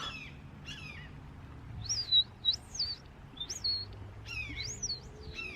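A songbird calling: a few quick falling chirps, then a run of short high whistled notes that rise and fall, several close together, with more falling chirps near the end.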